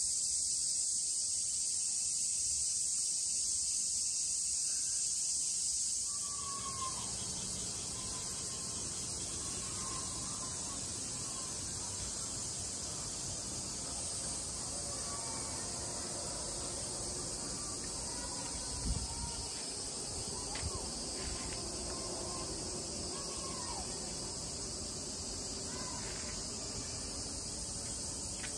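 Cicadas buzzing in a steady, high-pitched chorus, with a few short bird chirps over it and one low thump about two-thirds of the way through.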